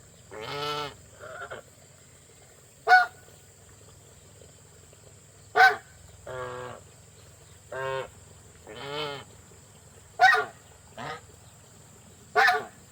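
Domestic geese honking, about ten calls with gaps of a second or two: some short, sharp honks and some longer, drawn-out calls.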